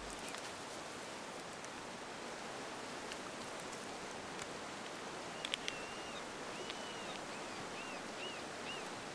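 Steady rush of a shallow river. About halfway through, a bird starts calling in a series of short, high, arched notes, repeating about twice a second.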